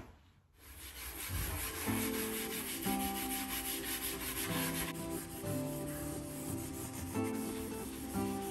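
Metal mesh scourer scrubbing a greasy wooden cabinet door with dish soap in quick back-and-forth strokes, over background music.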